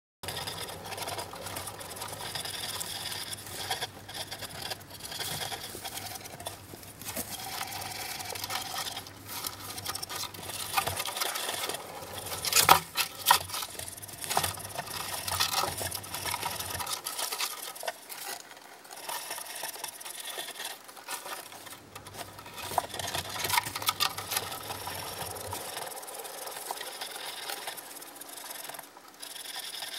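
Wooden gerbil running wheel spinning and rattling under the feet of several gerbils, with a low rumble that stops and starts several times as they jump on and off. Sharp knocks and clicks come throughout, loudest in a cluster about twelve seconds in.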